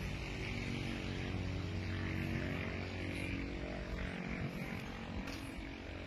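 An engine running at a steady speed, a low, even hum.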